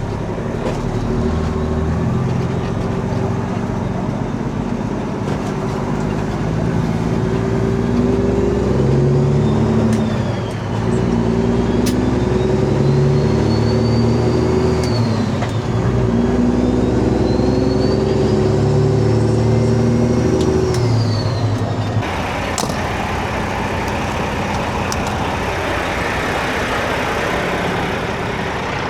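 Peterbilt 389 semi-truck's diesel engine pulling through the gears. The revs climb, drop sharply at a shift, and climb again, with a high whine rising and falling alongside. About three-quarters of the way through, the engine sound cuts off abruptly and a steady hiss follows.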